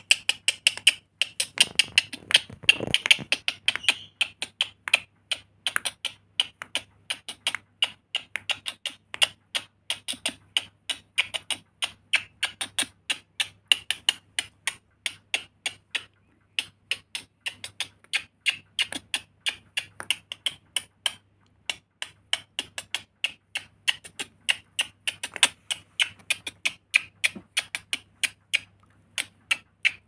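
Rainbow lorikeet making a quick run of sharp clicks, several a second, that stops briefly about halfway and then goes on.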